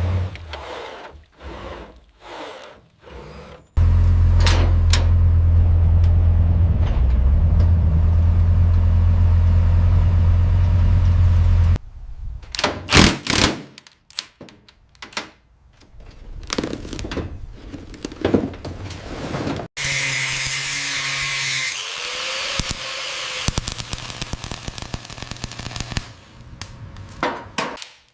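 A run of workshop sounds: scattered knocks and clicks, then a power tool or machine running steadily for about eight seconds and stopping abruptly. Then come more sharp knocks and clatter, a short hiss, and a few last knocks.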